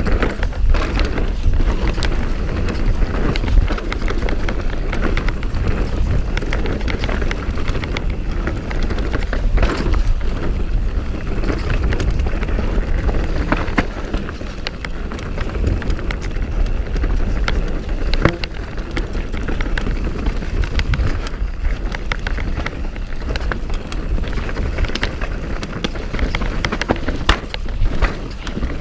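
Mountain bike descending a rooty dirt trail at speed: tyres rolling and skittering over roots and dirt, with the bike's chain and frame rattling in many sharp clicks over a steady low rumble.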